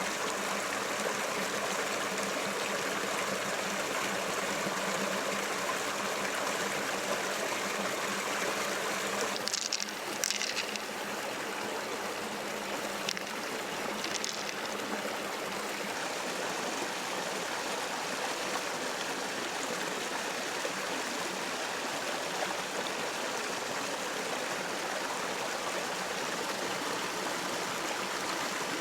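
Shallow river water flowing steadily with a constant rush, broken about a third of the way in by a few brief sharper splashing sounds.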